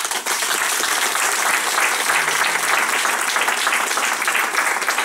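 Audience applauding, breaking out all at once and holding as steady, dense clapping.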